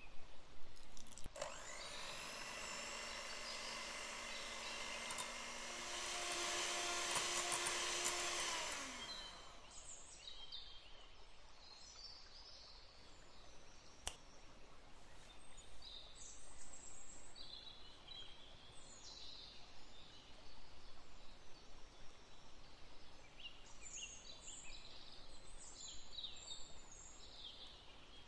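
Electric hand mixer whipping cream in a glass bowl: the motor spins up with a rising whine about a second in, runs steadily, gets louder around six seconds in, then winds down with falling pitch about nine seconds in. After that come quieter handling sounds, light clinks and scrapes.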